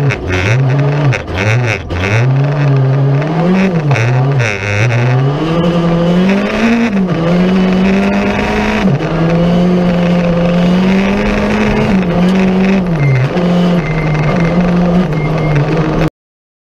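Rally car engine heard from inside the cockpit, revving up and down sharply through gear changes and lifts at first, then holding a steadier high note with short dips. The sound cuts off suddenly near the end.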